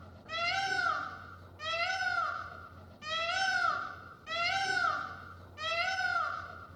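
A kitten meowing over and over, five high calls about a second and a quarter apart, each rising and then falling in pitch.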